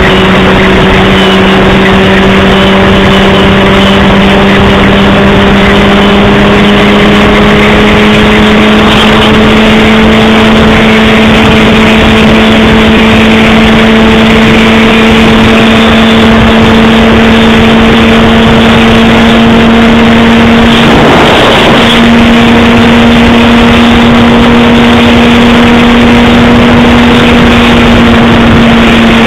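Honda CBR600RR inline-four engine running at a steady cruise, its pitch rising slowly as the bike gathers speed, under heavy wind and road noise on the microphone. About three-quarters of the way through, a brief rush of noise washes over the engine note.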